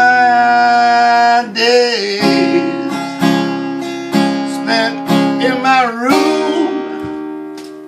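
Yamaha cutaway acoustic guitar strummed in a steady rhythm, with a man's voice holding one long sung note for the first second and a half, then a few short wordless sung phrases; the strumming grows softer near the end.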